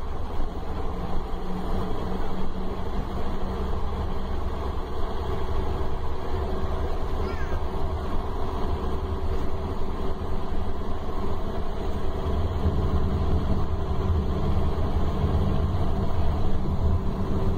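Scania K310 coach's diesel engine heard from inside the passenger cabin: a steady low drone that grows a little heavier in the last few seconds.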